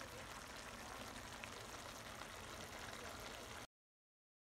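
A steady hiss with no distinct events, like running water or a pan still sizzling, that cuts off abruptly to dead silence a little over three and a half seconds in, at an edit.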